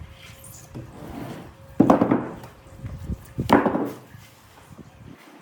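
Heavy blows struck on wood: two loud strikes, about two seconds in and again a second and a half later, each dying away briefly, with lighter knocks between.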